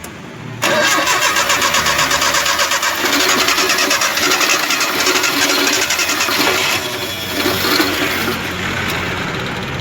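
A car's starter motor cranks the petrol engine in a steady pulsing rhythm. It starts suddenly just under a second in and eases slightly near the end, without the engine catching. The owners think the fuel is stuck and not reaching the engine.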